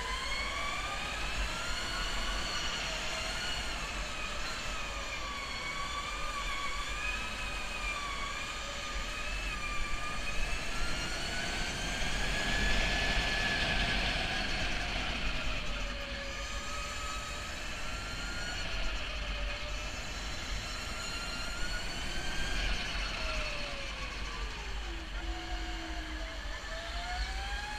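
Electric go-kart motor whining, its several-toned pitch rising and falling with the kart's speed through straights and corners, over a steady low rumble of tyres and wind. Near the end the whine drops sharply as the kart slows, then climbs again.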